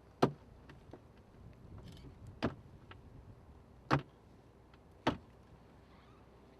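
Four sharp clicks or knocks at uneven gaps of one to two seconds, with a few fainter ticks between them, over a quiet background.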